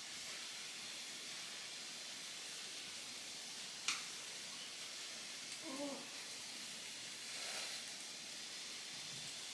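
Food frying in oil in a pan, a steady sizzle, with a sharp click of chopsticks against the pan or plate about four seconds in and a brief low tonal sound near the middle.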